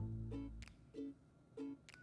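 Background music: a light plucked-string tune of short notes in a steady rhythm, with a deep bass note at the start.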